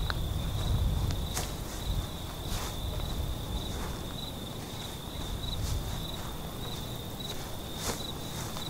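Crickets chirring in a steady high, pulsing trill, with a few footsteps and sharp clicks in the grass as someone walks.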